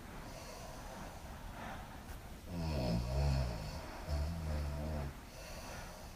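A woman snoring in her sleep: two low snores, each about a second long, the first a little after two seconds in and the second at about four seconds, with softer airy breaths around them.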